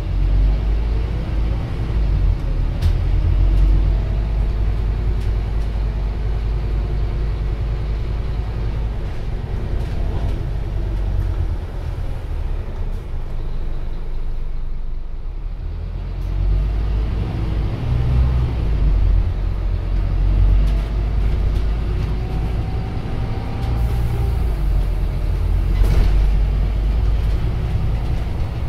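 Scania Omnicity single-decker bus's rear-mounted five-cylinder diesel engine heard from inside the cabin while the bus drives. The engine pulls and climbs in pitch over the first few seconds, eases off for a few seconds around the middle, then pulls again. A few sharp knocks and rattles come from the bodywork.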